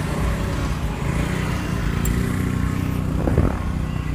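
A motor vehicle engine running steadily, with one sharp metallic clink a little past three seconds in.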